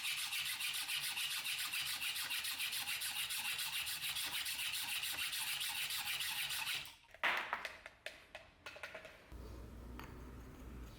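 Rapid, even back-and-forth rubbing strokes by hand on the workpiece, like scrubbing or sanding. They stop about seven seconds in, and a few separate scrapes and light knocks follow.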